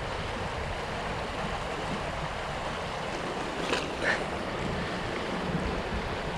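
Steady rushing noise of moving water, even and unbroken, with a faint short sound about four seconds in.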